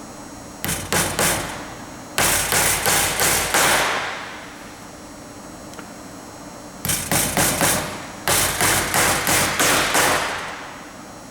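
Hammer driving two double-headed nails through a template into a rubber conveyor belt: two bouts of hammering, each a few setting taps followed by a run of about six harder blows at roughly three a second, with a short ring after the last blow.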